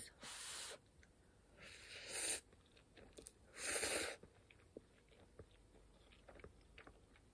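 A person slurping instant noodles from a cup, three short slurps in the first four seconds, then faint chewing.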